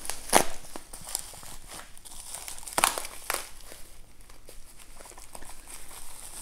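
Clear plastic parts bags crinkling as they are handled and opened, with a few sharper crackles about half a second and three seconds in.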